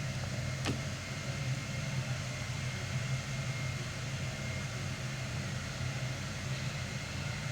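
Steady low hum with faint hiss, and a single light click just under a second in.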